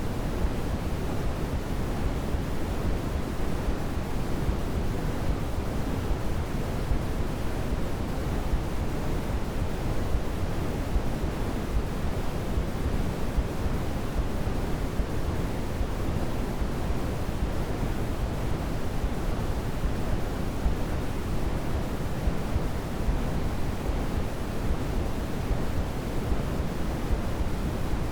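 Steady sleep-aid white noise: an even, unbroken hiss, fuller and deeper in the low end than in the high end, with no rise or fall in level.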